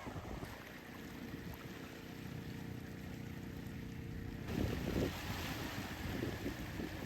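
A motor hums steadily, then about four and a half seconds in the sound cuts abruptly to wind buffeting the microphone over the rush of surf.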